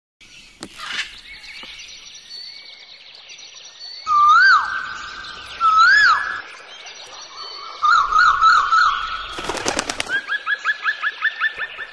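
Several birds singing and calling: two loud whistled notes that rise and fall, then a warbling trill, then a fast run of short rising chirps, with fainter birdsong behind throughout. A short cluster of clicks comes about nine and a half seconds in.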